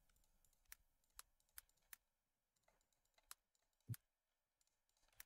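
Near silence with a few faint, sparse computer mouse clicks, about six in all, and one short soft thump just before four seconds in.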